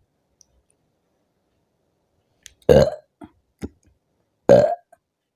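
A woman burps loudly twice, about two seconds apart, with a few faint mouth clicks between: gas brought up from a large quantity of fizzy orange soda drunk for a burp challenge.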